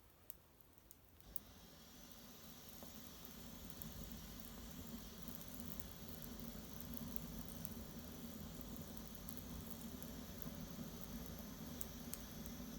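Small fire of dried maple brushwood burning, a steady hiss with a low rumble and scattered light crackles; it swells up about a second in and drops away abruptly at the end.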